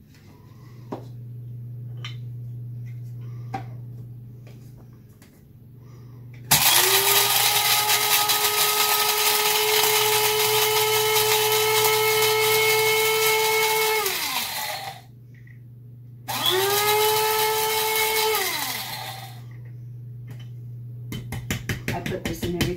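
Small electric blade grinder grinding dehydrated celery into powder. The motor runs with a steady high whine for about eight seconds and then spins down, and after a short pause a second burst of two or three seconds also winds down. A few light knocks come before the grinding and a quick run of taps near the end.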